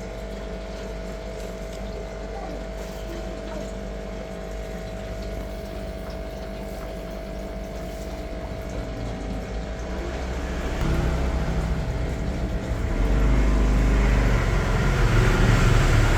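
A motor running with a steady hum. It gets louder about ten seconds in and again a few seconds later, as if revved.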